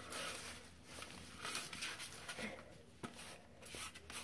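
Hands mushing and pressing kinetic sand in a tray: faint, irregular soft rustling and crunching.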